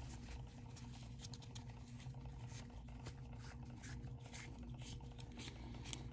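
Faint, irregular rubbing and scuffing of a cloth towel wiping down a small 3D-printed plastic earpiece shell with isopropyl alcohol, over a steady low room hum.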